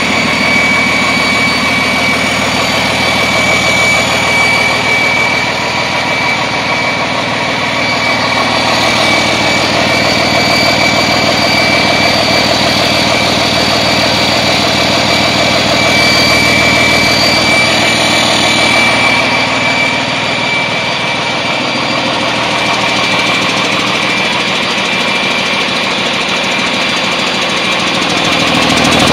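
1998 Cummins ISB 5.9-litre 24-valve inline-six diesel running steadily on an engine test stand, with no revving, during a test run of the used engine.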